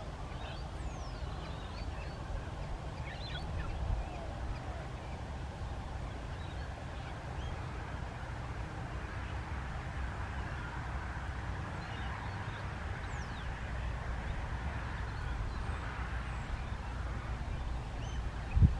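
Steady low rumble with faint, scattered bird calls over it, and a single loud thump near the end.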